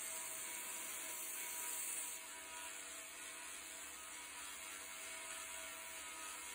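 Belt grinder running, with a wooden knife handle pressed against the belt for profiling for about the first two seconds; then the handle is lifted off and the belt runs on its own, slightly quieter.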